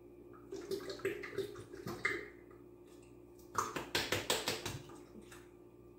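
Coconut milk poured from a small glass bottle into a plastic blender jar, splashing and glugging in irregular spurts. There is a louder run of splashes and knocks about three and a half seconds in, over a faint steady hum.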